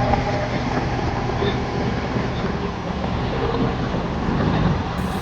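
Steady vehicle engine and road noise, a continuous low rumble with no distinct events.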